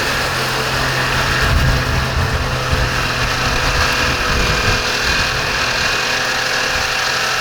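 Tractor engine running steadily while mowing hay, a constant drone.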